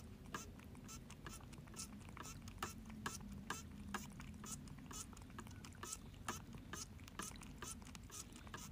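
Cat licking, faint small wet tongue clicks at an even pace of about three a second.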